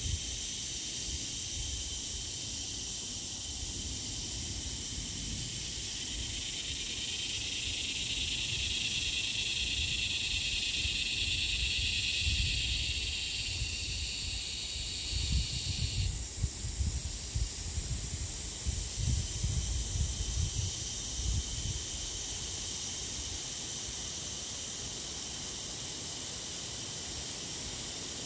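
Insects calling: a steady high drone, with a louder layer that swells from about a quarter of the way in and cuts off suddenly a little past the middle, and a fainter very high pulsing about twice a second over it. Some low rumbling bumps come and go in the middle.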